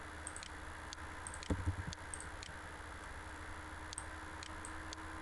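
Computer mouse clicking: a few short, quiet clicks scattered over a steady background hiss and hum. A soft low thump comes about one and a half seconds in.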